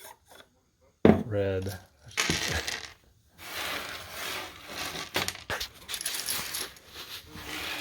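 Loose, shelled corn kernels clattering and rattling, a dense stream of small hard clicks, from about three seconds in. A short spoken word about a second in.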